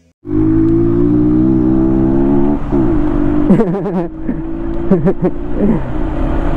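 Honda ADV 150 scooter's single-cylinder engine running steadily under way, with low rumble on the microphone. Its pitch wavers a few times in the second half.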